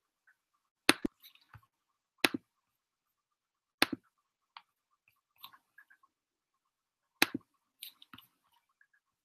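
Sharp clicks of computer keys or buttons close to the microphone: four loud clicks each followed by a quick softer one, about a second and a half apart, with fainter clicks between.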